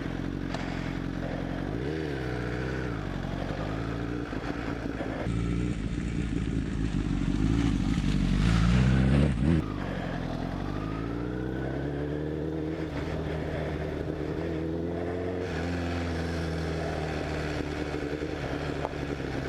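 Honda CBR1000RR sportbike's inline-four engine pulling at low speed on a dirt track, its revs rising and falling with the throttle. It builds to its loudest about halfway through, then drops sharply off the throttle and runs on steadier.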